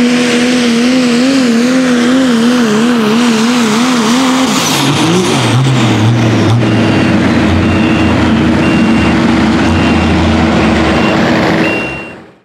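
Pro stock diesel pickup truck pulling at full throttle under heavy load, the engine note wavering rapidly up and down. About four and a half seconds in the revs drop sharply as the pull ends, and the engine settles to a lower rumble while a short electronic beep repeats at a steady pace. The sound fades out near the end.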